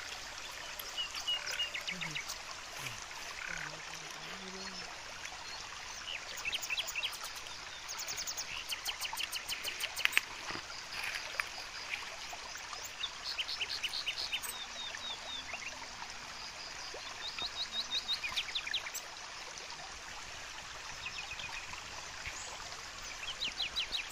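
Forest ambience: a steady background hiss with bursts of rapid high chirping, each a quick run of clicks lasting about a second, recurring every few seconds. There is a sharp click about ten seconds in.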